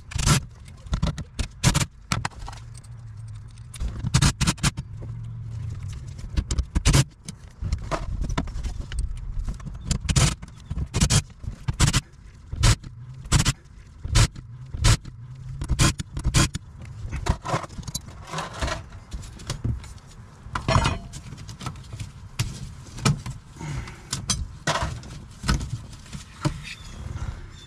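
Short runs of a cordless impact driver backing out the screws of the shifter boot retainers on a truck's sheet-metal floor, among many clinks, knocks and scrapes of screws, tools and the metal rings being handled.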